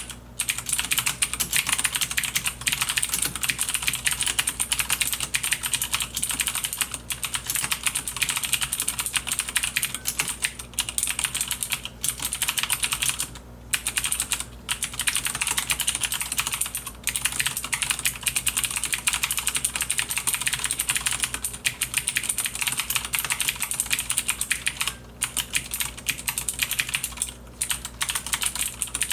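Logitech G610 mechanical keyboard with Cherry MX Blue clicky switches being typed on in a fast, continuous run of keystrokes. There are a few brief pauses, around the middle and again near the end.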